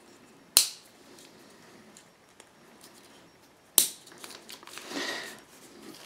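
Two sharp plastic clicks about three seconds apart: the orange levers of Wago 222-series lever connectors snapping shut to clamp the earth wires. A soft rustle of wires being handled follows near the end.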